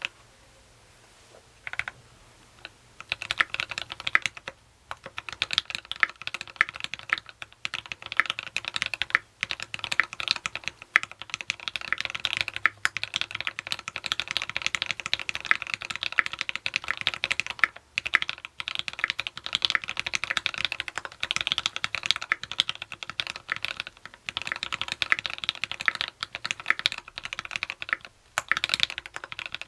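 Typing on a TX66 custom mechanical keyboard with lubed, filmed Tealios V2 linear switches, a brass plate and PPS keycaps in a sandwich mount. A few isolated keystrokes give way about three seconds in to a fast, steady stream of keypresses, with a few brief pauses.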